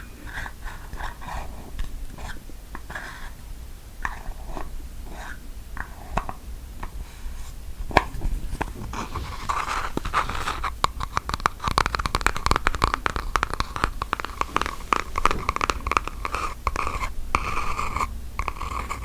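ASMR tapping and scratching on a hard object close to the microphone. Slow, scattered taps and scrapes come first, with one sharp click, then from about nine seconds in it turns into rapid, continuous scratching.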